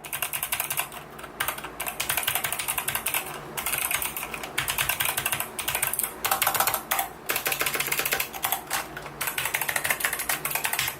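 Rapid typing on a COX CK700 mechanical keyboard with Kailh optical switches: a dense, steady run of key clicks broken by a few brief pauses.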